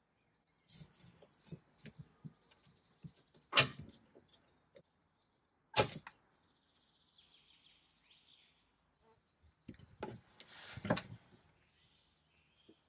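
Hand paint scraper working on a wooden cabinet door: scattered scrapes and knocks, with a few short, sharp, louder strokes. Birds chirp faintly in the background.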